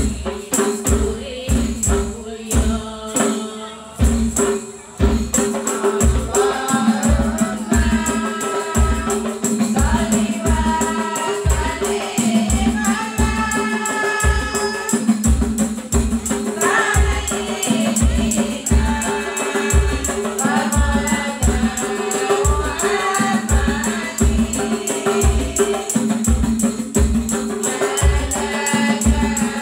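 Hadroh ensemble: hand-played frame drums (rebana) keep a steady, even beat, and about five seconds in a group of women's voices joins, singing a devotional song in unison, all amplified through a PA.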